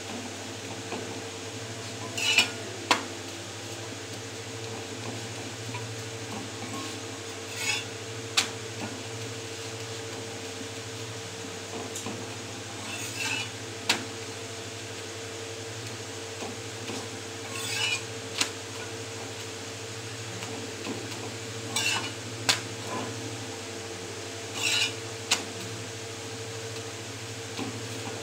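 Steel spatula pressing and scraping a chapati on a tawa (flat griddle), in short scrapes each followed by a sharp click of metal on the pan, repeating about every four to five seconds. A steady low hum runs underneath.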